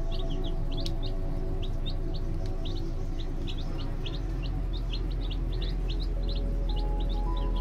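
Young chicks peeping: many short, high peeps, several a second, over background music with sustained tones.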